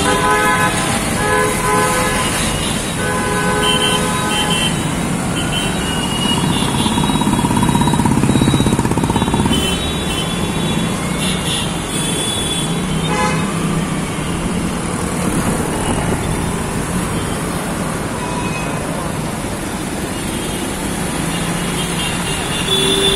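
Busy city street traffic heard from a moving auto-rickshaw: engines running all round, with vehicle horns tooting again and again, three short honks in the first few seconds and more scattered through the rest.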